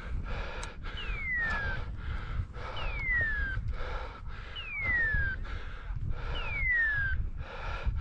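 A pointing dog's beeper collar sounding its point-mode tone: a falling whistle, repeating evenly about every two seconds, while the dog holds point. Under it are footsteps crunching over dry grass and stones.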